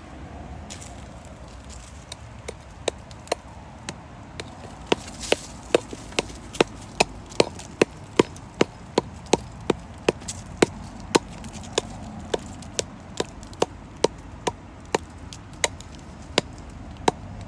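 A hand digging tool striking hard, compacted clay and rock again and again at a steady pace of about two to three sharp hits a second, starting about two seconds in.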